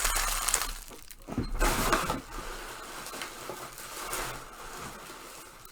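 Trading-card pack wrappers crinkling and cards being handled. The crackly rustle is loudest for about the first second, then gives way to quieter brushing and sliding of cards.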